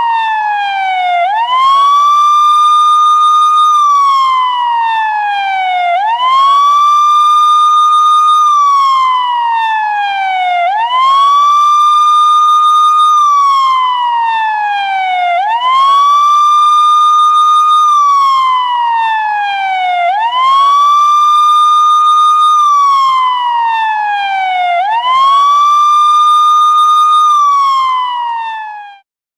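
Indian police car siren wailing: a loud tone that rises quickly, holds high for a moment, then slides slowly back down, repeating about every five seconds. It cuts off abruptly near the end.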